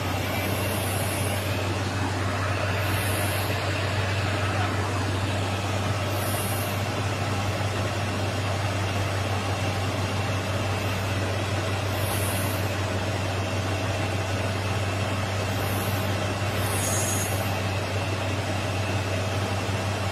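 Heavy diesel truck engine idling steadily, its air brake system still building pressure, with short high hisses every few seconds.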